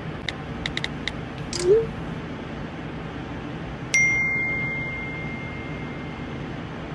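A few sharp clicks and a short rustling burst, then about four seconds in a single clear bell-like ding that rings out and fades over a couple of seconds, over a steady low hum.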